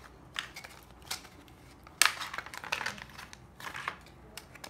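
Clear plastic packaging crinkling and crackling in scattered bursts as it is handled and small plastic hair accessories are pulled from it, the loudest crackle about two seconds in.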